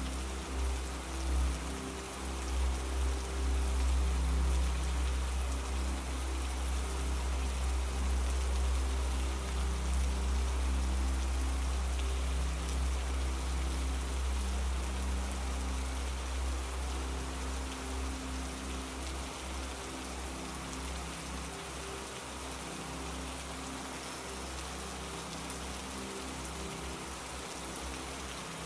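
Steady rain sound, an even patter with no break, over a low droning pad with a few soft held tones. It eases slightly in level toward the end.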